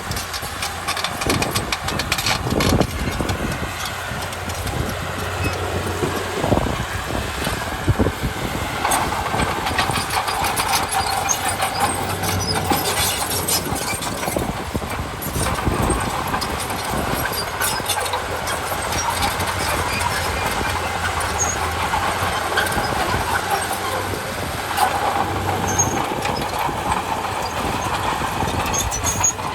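Heavy diesel earthmoving machinery at work: an engine running steadily under frequent metallic clanks.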